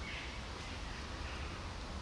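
Outdoor background: a steady low rumble with faint bird chirps twice, near the start and about a second and a half in.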